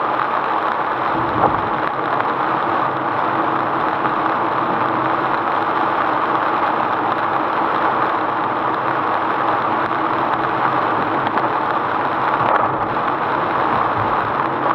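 Steady noise of a car driving through heavy rain, heard from inside the cabin: rain hitting the body and windshield and the tyres running on the wet road.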